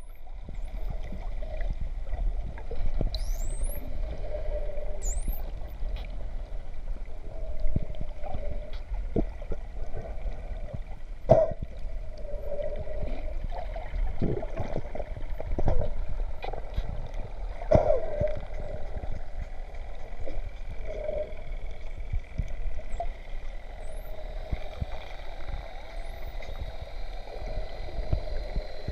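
Underwater sound of spinner dolphins: a low rumble and gurgle of water around the camera, with a few faint rising dolphin whistles and scattered sharp clicks and knocks.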